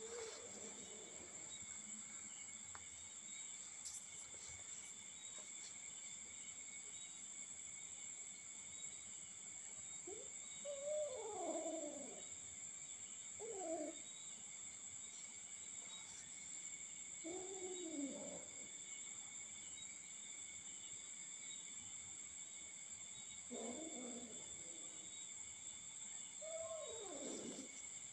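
Steady high-pitched drone of crickets, with about five short animal calls that fall in pitch, spaced a few seconds apart from about ten seconds in.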